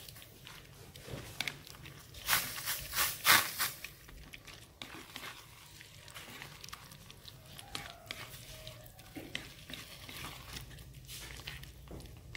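Green plastic rice paddle stirring and mashing wet rice in a stainless steel wok: soft squishing and scraping, with a cluster of louder scrapes and knocks against the pan a few seconds in.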